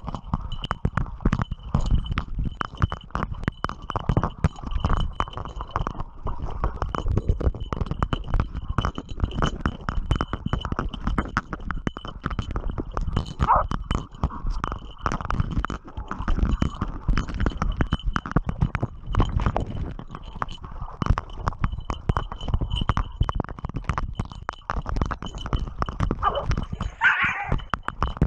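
Hunting dogs wrestling a wild boar in shallow muddy water: constant rapid knocking, thudding, scuffing and splashing close up, with a short animal cry about 13 seconds in and another near the end.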